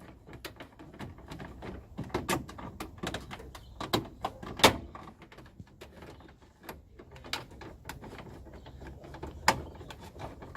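Irregular clicks, knocks and light clatter of things being handled and moved about, with a sharp knock about four and a half seconds in and another near the end.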